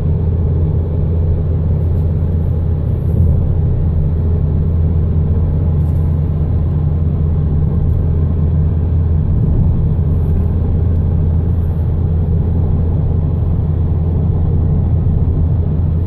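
Steady low rumble of a car driving along at an even speed, heard inside the cabin: road and engine noise.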